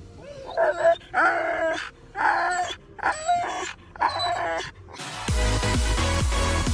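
Siberian husky vocalizing in about five drawn-out, pitch-bending whines and yowls in quick succession. Electronic dance music starts about five seconds in.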